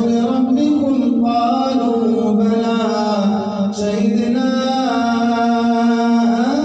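A man's voice reciting the Quran aloud in a slow melodic chant, drawing out long held notes that glide up and down, with a brief break about three and a half seconds in.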